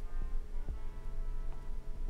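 Test tone from the car stereo leaking faintly onto the microphone as a steady low hum, with soft ticks about three times a second.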